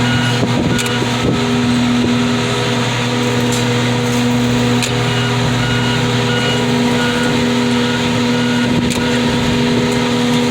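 Car crusher's engine and hydraulic pump running steadily through a crush cycle, a steady low hum with a few faint clicks. The cycle was started on its own by a faulty remote.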